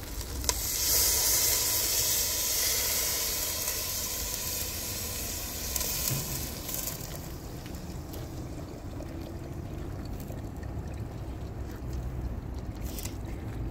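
Water poured from a kettle into a pot of frying chicken over a wood fire: a loud sizzling hiss starts about a second in and dies down over the next few seconds into the steadier trickle of the pour.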